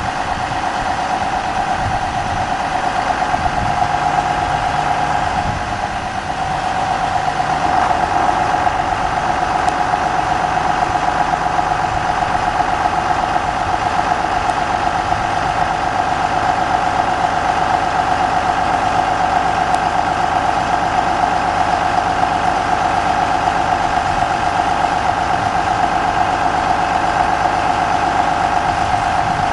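John Deere tractor's diesel engine running steadily while its hydraulics raise the bin of a high-tip grain hopper, with a strong steady whine over the engine.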